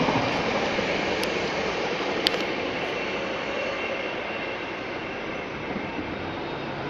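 Freight train hauled by a Class 66 diesel locomotive rolling past on the rails, its wagons rumbling, the noise slowly fading as it draws away. One sharp click about two seconds in.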